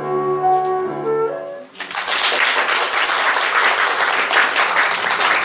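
Flute and piano playing the last notes of a piece, stopping a little under two seconds in, then audience applause.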